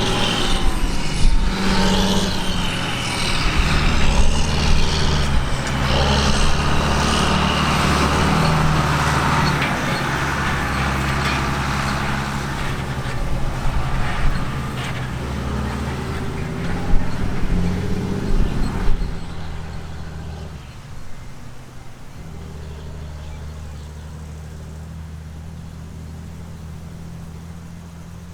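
Diesel engines of grain-harvest machinery (combine harvesters and tractors) running steadily under a busy mechanical clatter and rush. About two-thirds of the way through the clatter drops away, leaving a quieter, steady engine drone.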